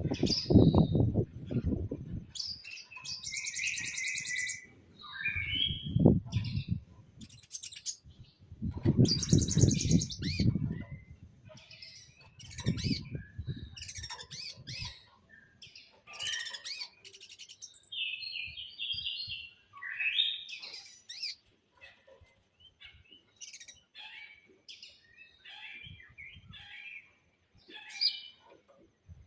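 Songbird masteran recording: a mix of several species' songs, with short high chirps, rapid trills and buzzy phrases following one another. Several loud low-pitched spells come in the first half.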